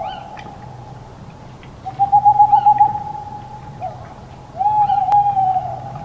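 A hooting tone held at one steady pitch, swelling loud three times for about two seconds each, with a fainter steady tone between the swells.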